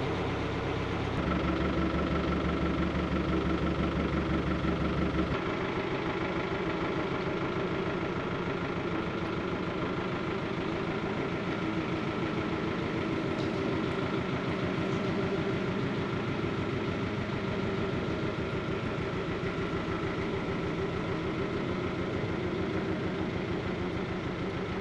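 Narrowboat engine running steadily under way, a continuous drone whose tone shifts slightly about a second in and again about five seconds in.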